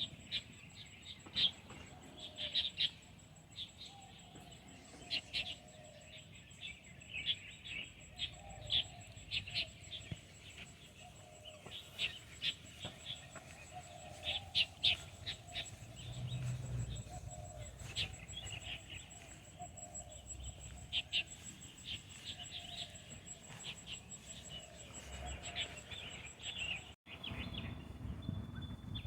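Small birds chirping and twittering in short, scattered calls.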